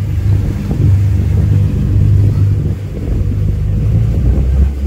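Boat's engine running while the boat is underway, a loud steady low rumble. Its hum drops to a lower pitch about four seconds in.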